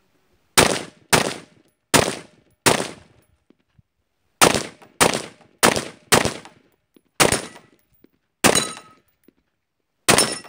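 AR-15 rifle fired semi-automatically in quick strings: about a dozen shots, roughly half a second apart, with a pause of nearly two seconds after the first four. Each shot is a sharp crack with a short echoing tail.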